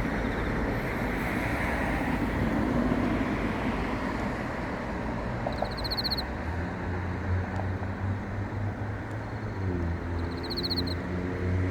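A cricket chirping: two short chirps about five seconds apart, each a quick trill of rapid pulses, heard over a louder steady low rumble. A low droning hum joins the rumble about halfway through.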